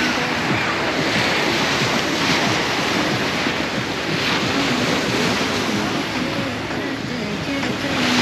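Surf washing up on a sandy beach, surging every couple of seconds, with wind rushing over the microphone.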